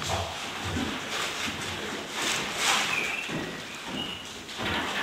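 Leaves rustling in short irregular bursts as ivy is handled, with a few soft knocks near the start and two brief high squeaks.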